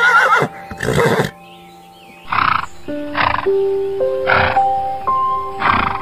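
Horse neighing: a quavering whinny at the start, then about five shorter, breathy calls spaced roughly a second apart, over background music with long held notes.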